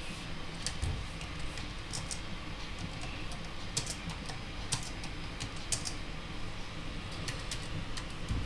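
Typing on a laptop keyboard: irregular key clicks, some in quick runs, with short pauses between.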